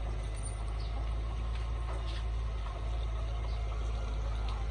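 Heavy earthmoving machinery engine running steadily, heard as a low rumble with a few faint ticks.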